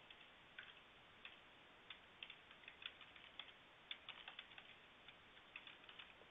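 Typing on a computer keyboard: faint, irregular key taps, some in quick little runs.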